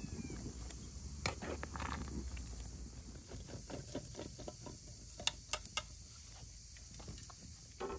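A metal spoon stirring wild plums in an aluminium pot, then plums tipped from a colander into a large aluminium pot: a run of soft knocks and patter, with a few sharper clicks about five and a half seconds in.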